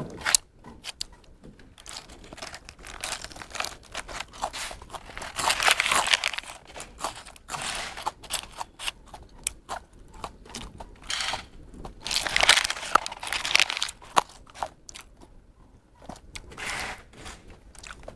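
Crispy fried chicken being chewed and crunched close to a clip-on microphone, with a series of short crackles, while the paper wrapper crinkles in two louder spells, about six seconds in and again around twelve to thirteen seconds.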